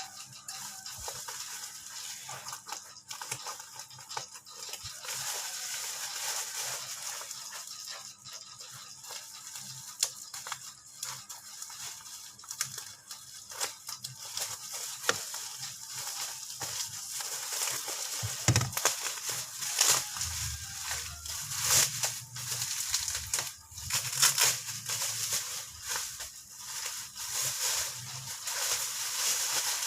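Packaging being handled and unwrapped: irregular crinkling, crackling and rustling with scattered clicks, growing louder and busier past the middle, with one low thump.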